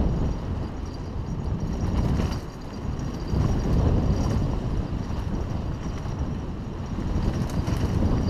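A Haro hardtail mountain bike rolling fast down a dirt trail: a steady deep rumble of tyres over packed dirt and stones, mixed with the bike's rattle and wind on the microphone, swelling and easing with the terrain.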